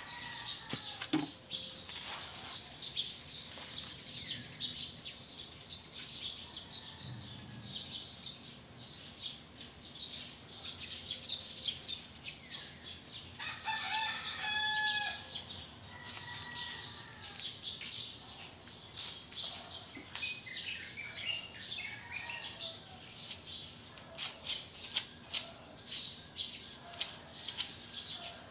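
A rooster crows once, about halfway through, over a steady high insect chirring. Scattered short clicks come near the end.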